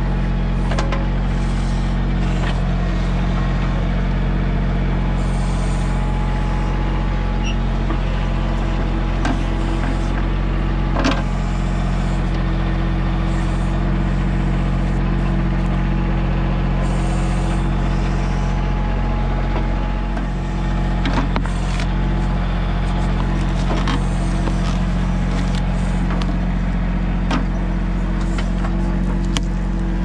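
Diesel engine of a Mahindra 1626 compact tractor running steadily while its backhoe digs, with a few short clunks scattered through.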